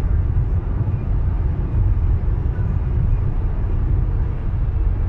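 Steady low rumble of road and engine noise inside a car's cabin at motorway speed.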